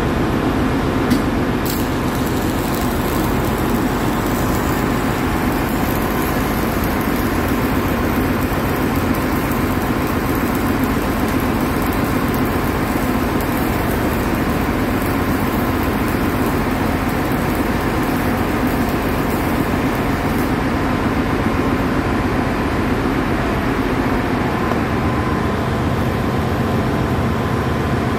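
Electric arc welding on a steel pipe flange: the steady hiss of the welding arc, which stops about two-thirds of the way through, over a constant drone of workshop machinery.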